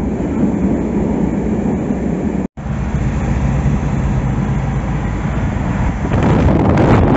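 Metro train running, a steady rumble heard inside the carriage. After a cut about two and a half seconds in, steady road noise inside a moving car on a highway, getting louder about six seconds in.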